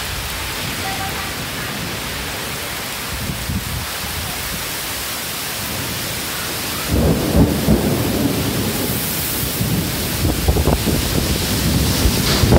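Heavy rain pouring down steadily in a thunderstorm. About seven seconds in, a loud, uneven low rumble of thunder rises over the rain and keeps on.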